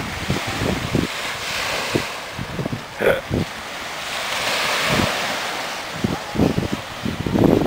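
Small waves breaking and washing on a sandy shore, with wind buffeting the microphone in irregular gusts. About three seconds in there is one short pitched sound.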